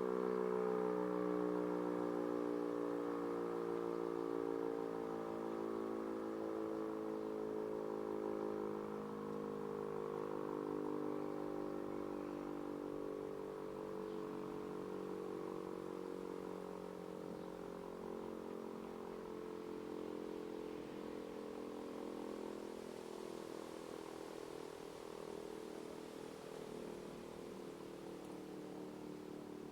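E57 electromechanical fire siren winding down after switch-off: its rotor tone, several pitches at once, slowly sinks in pitch and fades as the rotor coasts to a stop.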